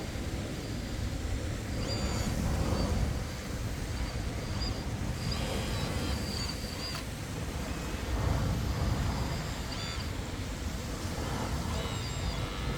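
Kobelco K961 hydraulic excavator running, its engine rising and falling in load in two swells, with short high-pitched squeals coming and going on top.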